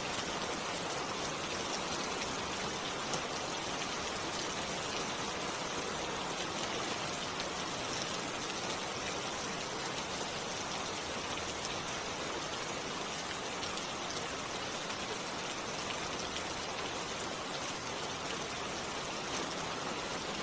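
Steady rain falling on leaves, an even hiss with scattered drop ticks.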